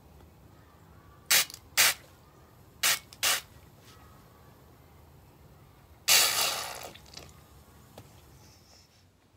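Pressure being let out of an old basketball as a garden hose fills it with water: water and air spurt out around the hose where it is jammed into the valve hole. Four short spurts in two pairs, then a longer spray about six seconds in that fades away over a second.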